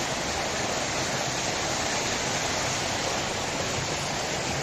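Steady rushing of a waterfall's falling water, an even, unbroken noise.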